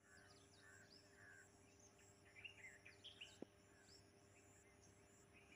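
Near silence with faint bird chirps and short calls, busiest in the middle, and one faint click a little after halfway.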